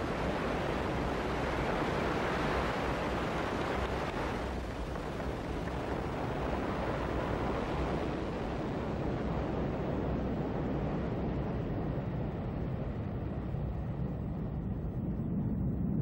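Ariane 5 rocket at liftoff: a steady, dense roar from its engines and solid boosters. The roar turns duller over the second half as the high end fades.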